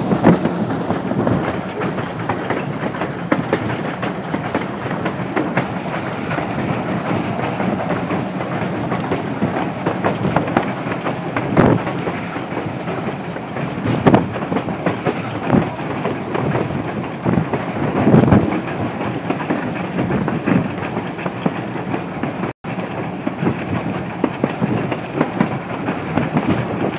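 Steam-hauled passenger train rolling along: steady rumble of the car's wheels on the track with a clickety-clack over the rail joints and scattered louder knocks. The sound cuts out for an instant near the end.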